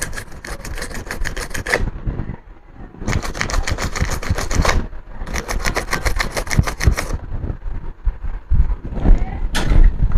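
Rapid back-and-forth scrubbing of the laptop's screen cable connector to clean it, in three bouts of quick, rhythmic strokes with short pauses between.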